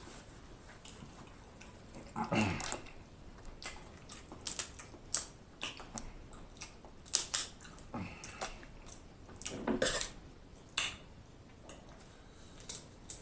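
Snow crab legs being cracked and pulled apart by hand, with repeated sharp shell snaps and clicks, along with close-miked chewing.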